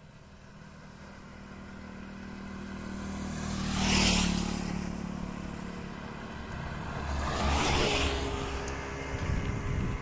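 Two small vehicles driving past one after the other: an approaching motorcycle's engine grows louder and passes about four seconds in, then an auto-rickshaw's engine passes close about eight seconds in and fades away.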